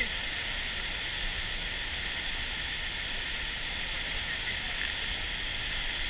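Large waterfall pouring into its plunge pool close by: a steady, even rushing of falling water with no breaks.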